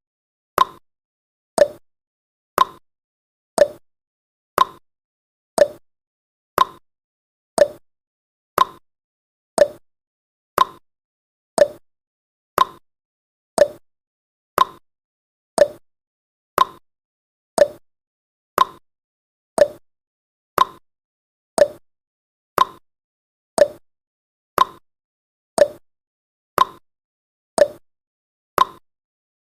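Countdown timer's clock tick-tock sound effect, one short tick a second, alternating higher and lower.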